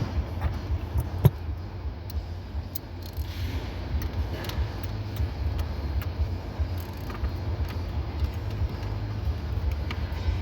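Light clicks and knocks of steering wheel parts being handled and fitted, one sharper click about a second in, over a steady low rumble.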